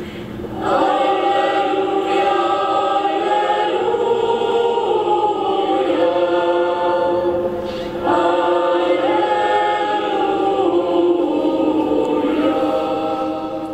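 Choir singing a slow liturgical chant in long held notes, in two phrases: the second begins about eight seconds in, and the singing tails off near the end.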